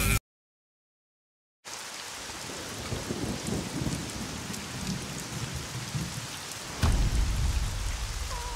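After about a second and a half of dead silence, steady rain fades in. A sharp thunderclap with a low rumble breaks through about seven seconds in.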